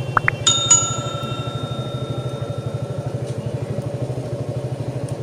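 Motorcycle engine idling with a steady, even pulse. About half a second in, a bell is struck twice and its ring fades over a couple of seconds, just after two short rising chirps.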